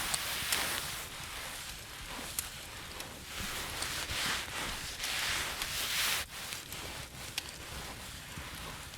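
Fire crackling with scattered sharp little pops, under soft rustling that swells and fades several times.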